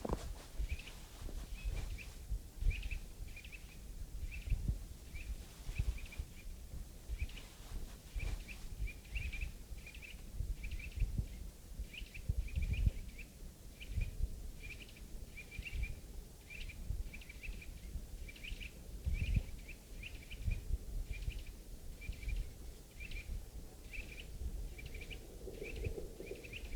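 A small bird chirping over and over, short high chirps about one or two a second, over a low uneven rumble.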